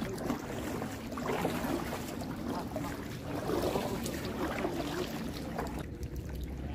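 A paddled canoe moving through calm water: water sloshing and trickling around the hull and paddle.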